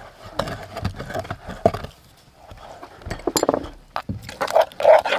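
Wooden pestle pounding wet chili paste in a clay mortar: a few irregular dull knocks, then a metal spoon scraping and clinking against the mortar. Near the end a louder pitched call, likely an animal, rises over it.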